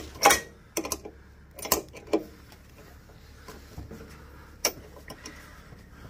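Adjustable wrench clinking metal on metal against the centre bolt of a washing machine's direct-drive motor rotor as the bolt is worked loose: about five sharp clicks, the loudest just after the start and the last one near five seconds in.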